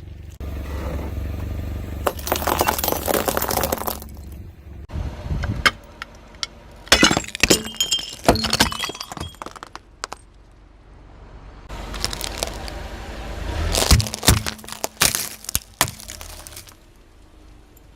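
Car tyre rolling over brittle objects and crushing them: bursts of sharp cracking and crunching, like breaking glass, in several separate takes over a low engine rumble.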